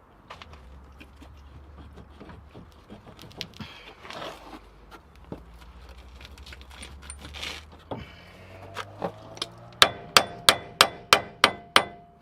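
Hammer on steel, knocking the greased hub assembly back into place on the car's front suspension. There is quiet scraping and a few light knocks at first, then near the end a quick run of about eight ringing metal blows, roughly three a second.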